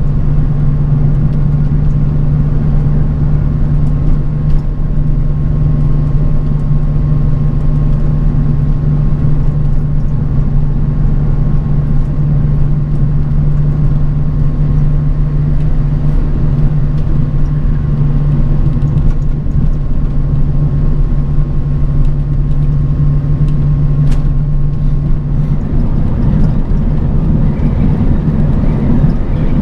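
A bus on the move, heard from inside the cabin: a steady engine drone over continuous road rumble. About three-quarters of the way through, the engine's steady note drops away and the rumble turns rougher, as when the engine's load or speed changes.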